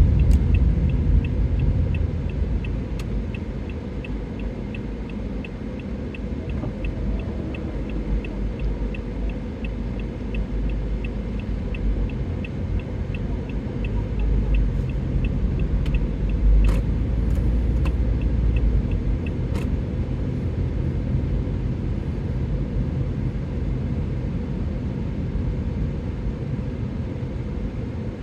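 Car driving slowly, a steady low road and engine rumble heard inside the cabin. A fast regular ticking, about two to three ticks a second, runs for about the first half and then stops, with a few sharp clicks after it.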